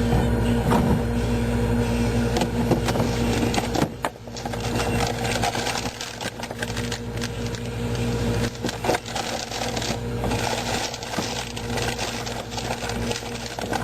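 Household cabinets being opened and their contents handled: a steady hum for the first four seconds, then a sharp click and a run of irregular clicks, knocks and clattering.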